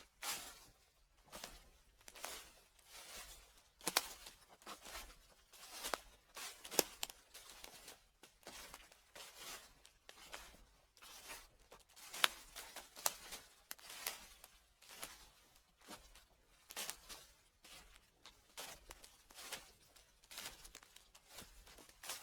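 Footsteps crunching through dry fallen leaves, a slow irregular series of crackling steps, about one or two a second.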